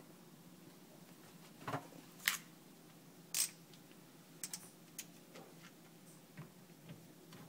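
Scattered sharp clicks and light taps of a screwdriver working a metal hose clamp on a garbage disposal's dishwasher inlet. Two louder clicks come a little past two and three seconds in, then lighter ticks, over a faint steady hum.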